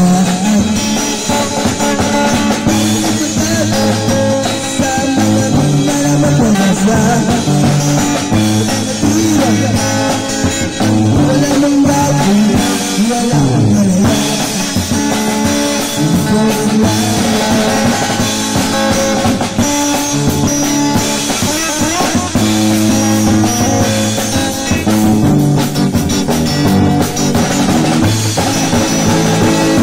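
Live electric guitar and acoustic drum kit playing a rock song together, the guitar coming through a portable amplifier speaker.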